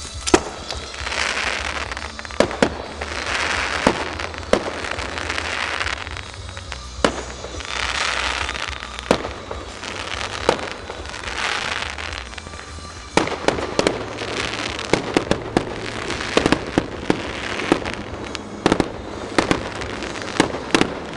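Fireworks display: repeated hissing rushes about a second long, with sharp bangs in between. About 13 seconds in, it turns into a dense run of rapid cracks and bangs.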